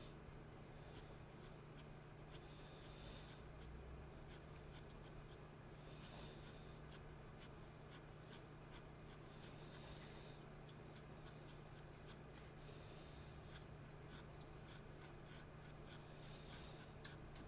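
Fine-tip ink pen scratching out quick, short hatching strokes on heavy, grainy-textured drawing paper: faint, rapid scratches and ticks over a steady low hum.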